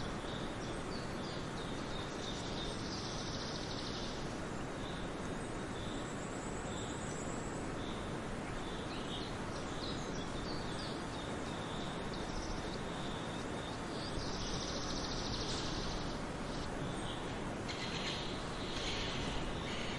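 Forest birds chirping and singing: many short high calls scattered throughout, with a few denser trilling stretches, over a steady background hiss of outdoor ambience.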